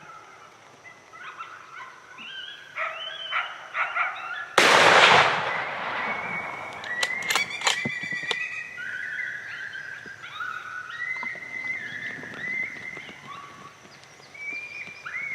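Coyotes yipping and howling, wavering high calls, with a single rifle shot about four and a half seconds in that echoes and fades over about a second. The yipping and howling carry on after the shot.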